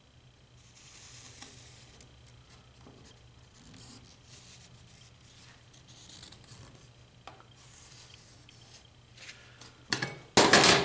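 A marker scratching over a steel plate as it is run around the edge of a chainsaw bar, loudest about a second in and then in fainter short strokes. Near the end there is a loud metallic clatter as the steel bar is lifted off the plate.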